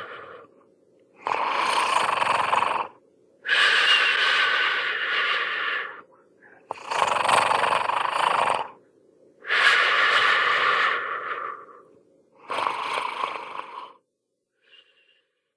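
Hanna-Barbera cartoon snoring sound effect: five long snoring breaths in a row, each about two seconds, the last one shorter, stopping about fourteen seconds in.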